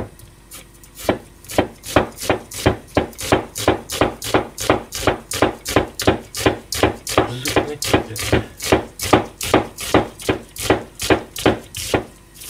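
Carbon-steel kitchen knife finely mincing an onion on a plastic cutting board: quick, even chops, about four a second, starting about a second in.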